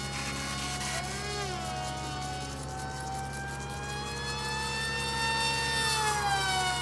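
Electric motor and propeller of a small RC flying wing whining at high speed overhead, its pitch sliding up and down as the plane turns and passes, then falling near the end as it flies away.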